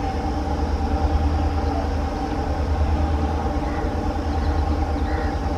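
Twin WDG-4 (EMD GT46MAC) diesel-electric locomotives, with two-stroke EMD 710 engines, running under load as they accelerate a goods train. It is a steady, deep engine drone with several steady tones above it.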